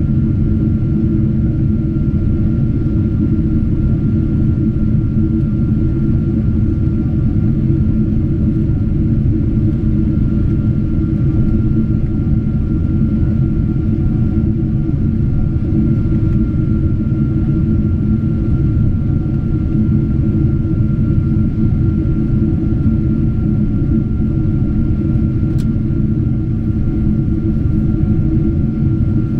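Boeing 777-200 cabin noise in flight: a steady, loud rumble of the jet engines and airflow heard from inside the cabin, with a thin steady whine above it.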